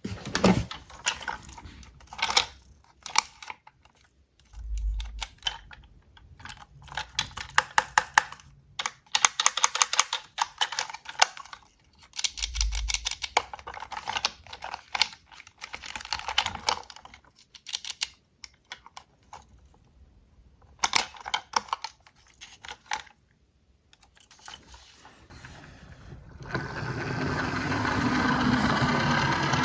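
Small diecast toy cars clicking and clattering as they are handled and run down a slope, in quick runs of ticks with short pauses and a couple of low thuds. A steady rushing noise sets in near the end.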